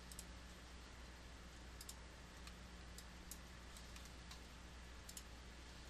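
Near silence under a low steady hum, with several faint computer mouse clicks scattered through it.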